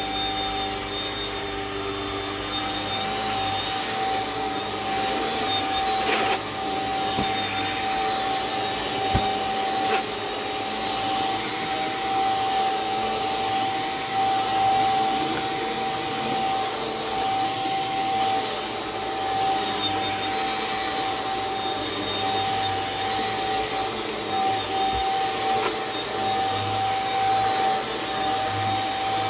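Corded stick vacuum cleaner running steadily as its powered floor head is pushed over carpet, the motor giving a constant whine over the rush of suction.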